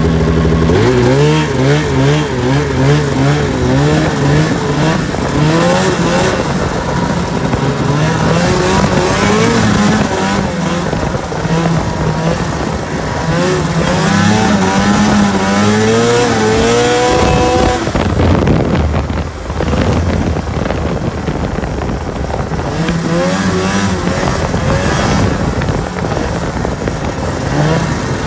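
A 1999 Arctic Cat ZR 500 snowmobile's rebuilt two-stroke twin engine under way, its pitch rising and falling with the throttle. It climbs in a long rev about two-thirds of the way through, drops off briefly, then picks up again near the end.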